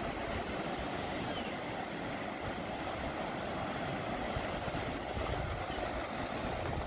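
Small waves breaking and washing up a sandy beach, a steady surf noise, with wind rumbling on the microphone.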